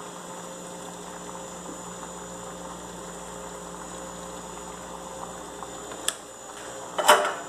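Vegetables and fish sizzling faintly in a very hot clay pot: a steady low hiss. There is a single click about six seconds in and a short knock about a second later.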